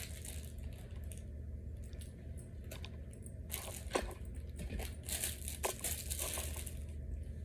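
Crinkling of a small plastic hardware bag being handled, with a few light clicks of small parts, the clearest about four seconds in. A steady low hum runs underneath.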